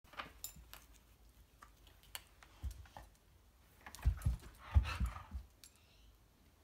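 Belgian Shepherd dog huffing and scuffling in play around a kitten on a cardboard scratcher. There are scattered light clicks and rustles at first, then a cluster of low thumps and breathy huffs about four to five seconds in.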